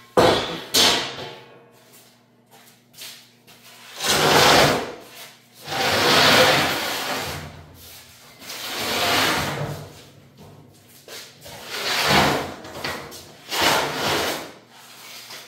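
A large rusty steel plate dragged and shoved across a steel work table: a run of rough metal-on-metal scrapes, each about a second long, with a couple of sharp clanks at the start.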